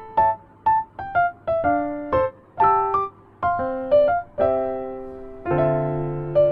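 Background piano music: a melody of short, separate notes, several a second, that gives way to longer held notes and chords in the last two seconds.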